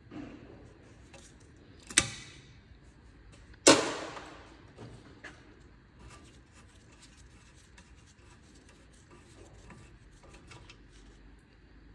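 Two sharp metallic snaps about a second and a half apart, the second louder with a short ring, as locking pliers are clamped shut on the rear rubber brake hose to pinch it off. Then faint small clicks of hand work at the brake pipe union on the caliper.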